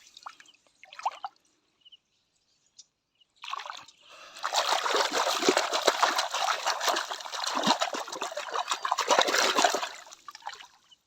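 Water trickling and splashing over toy animals as they are washed, with a few small knocks at first, then pouring steadily for about seven seconds from three and a half seconds in.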